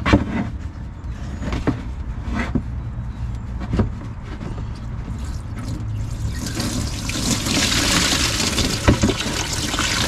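Engine coolant pouring from the loosened lower radiator hose and splashing into a drain pan. It starts about six seconds in and builds to a steady gush. Before that there are a few light knocks.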